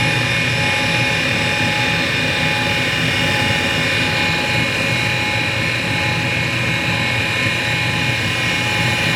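Hall Model 80 valve refacer running: its motor and grinding wheel spin at a steady speed, giving a constant hum with several unchanging tones.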